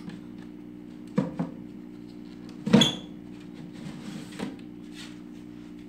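Handling clatter at a glass reptile enclosure on a wire shelving rack: two knocks about a second in, then a louder clink with a brief ring, and a softer knock later, over a steady low hum.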